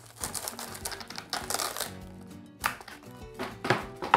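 Plastic cling wrap being pulled from its box and torn off, a rustling crinkle followed by a few sharp clicks, over soft background music.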